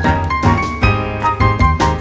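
Background music with a steady beat and a melody of sustained notes.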